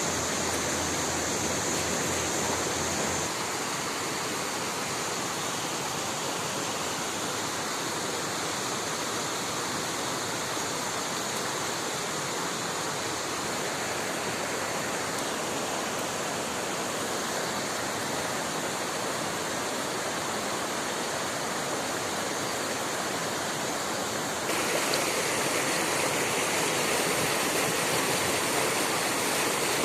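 Flowing river water rushing steadily. Its tone shifts abruptly about 3 seconds in and again near the end, where it gets louder and brighter.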